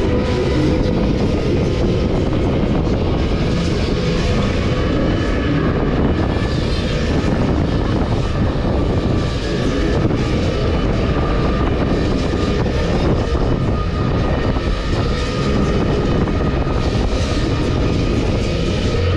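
A Move It 18 fairground thrill ride running, its arm and gondola swinging round: a steady, loud rumble and rushing noise.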